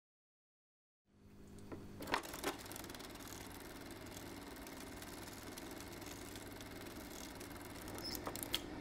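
A faint, steady mechanical whir with a low hum, coming in after about a second of silence, with a few clicks soon after it starts and again near the end.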